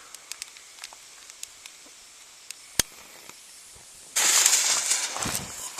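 A sharp click, then about four seconds in a lit firework fuse starts hissing and sputtering loudly for about a second and a half, breaking into crackles.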